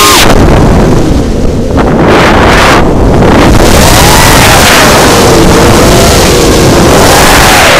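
Brushless motors of a 210-size FPV racing quadcopter heard from its onboard camera, a whine that rises and falls in pitch with the throttle over heavy wind noise on the microphone. The sound thins out briefly twice in the first three seconds.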